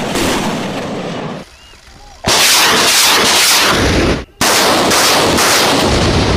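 Rockets firing in salvo from a truck-mounted multiple rocket launcher: a loud rushing blast with sharp repeated cracks. It eases off about a second and a half in, returns at full strength just after two seconds, and cuts out for a moment just after four seconds before carrying on.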